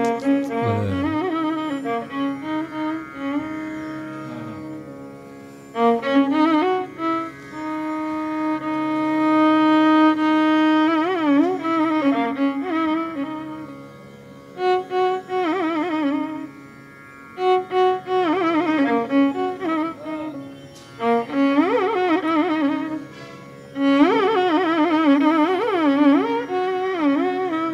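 Instrumental background music: a single melody line with long held notes and wavering, sliding ornaments, briefly pausing a few times.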